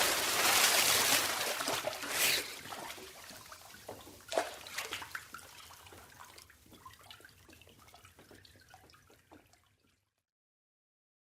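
Water churning and sloshing after a dive splash, fading steadily, with smaller splashes about two seconds and four seconds in. It dies away into scattered drips and trickles, then silence near the end.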